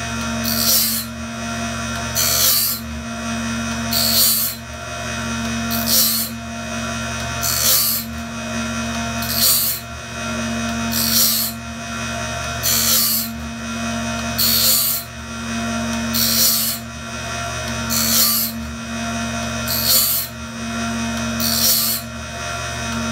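Cat Claw bandsaw blade sharpener running: a steady motor hum, with the grinding wheel biting a blade tooth in a short, high grinding burst about every 1.7 seconds as the blade indexes tooth by tooth.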